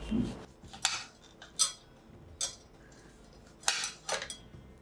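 A knife chopping boiled lemon on a ceramic plate: several sharp clicks of the blade hitting the plate at irregular intervals, after a soft thump at the start.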